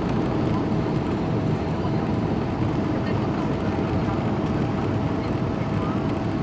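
Steady cabin noise of a Boeing 777-200 in cruise, heard by the window: an even rumble of engines and airflow with a faint steady hum.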